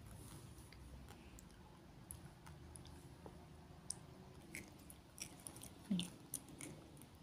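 A small child quietly chewing candy-coated chocolates, with faint clicks and smacks from the mouth. A brief vocal sound from the child comes about six seconds in.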